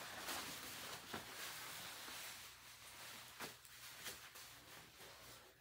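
Faint rustling of fabric as a jacket is pulled on over the head and arms, with a few soft brief swishes.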